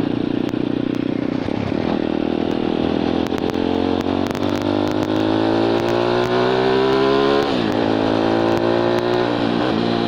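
Motorcycle engine accelerating hard under load, its pitch climbing steadily, then dropping sharply at a gear change about seven and a half seconds in and again near the end before climbing once more.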